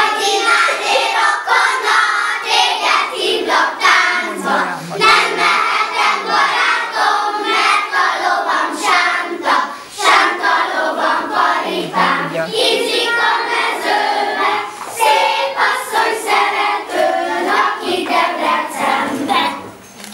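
A group of young kindergarten children singing a song together in unison, loud and continuous, as they dance a circle game.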